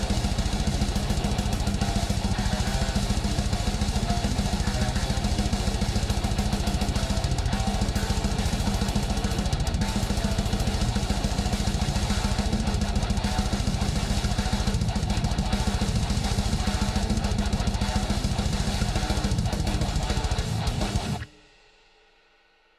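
Music with a full drum kit, loud and dense with a fast steady beat, cutting off suddenly near the end.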